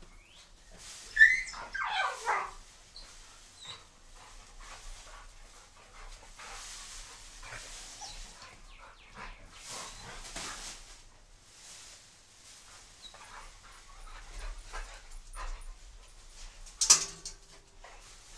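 Young dogs play-fighting. About a second in, one gives a loud yelping cry that falls in pitch over about a second and a half, and there is a sharp yelp or bark near the end. Between them runs scattered rustling of a plastic bag and dry grass.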